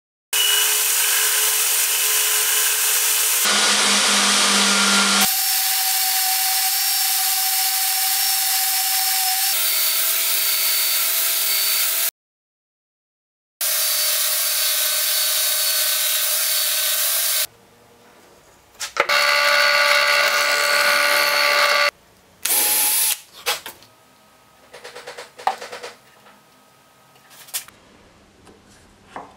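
Portable belt sander, mounted upside down as a benchtop sanding station, running with a steady whine and belt hiss as small pieces of wood are pressed against the moving belt. It cuts out twice and runs once more briefly, then gives way to quieter scattered scraping and knocks.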